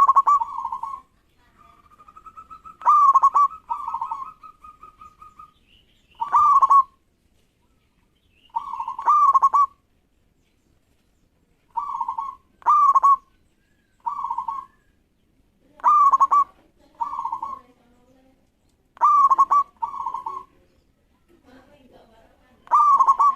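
Male zebra dove (perkutut) singing its cooing song: short, loud phrases of a few clipped coos, repeated about every two to three seconds. After the first phrase a fast pulsed trill runs for a few seconds.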